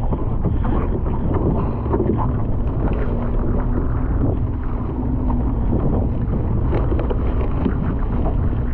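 Steady wind buffeting the microphone aboard a small open fishing boat in stormy weather, a dense rumble with no clear events.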